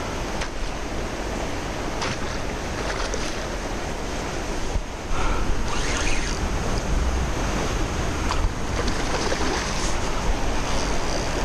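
Steady rush of a river running high, with wind buffeting the microphone in low rumbles that grow stronger about halfway through.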